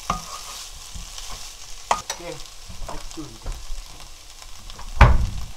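A wooden spatula stirring and scraping through sauce-coated shredded dried pollock in a nonstick frying pan, with a sharp click about two seconds in. A loud knock near the end.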